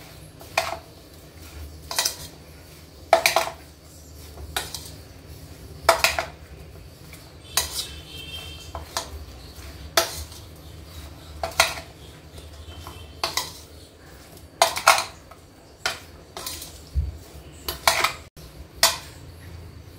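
Metal spoon clinking against a ceramic bowl while tossing chopped guava pieces with spices, with sharp irregular clinks about once or twice a second.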